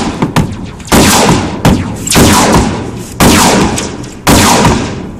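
Hammer blows on heavy-gauge sheet metal, about five loud strikes roughly a second apart, each ringing and dying away. The metal is being beaten over to close a folded seam.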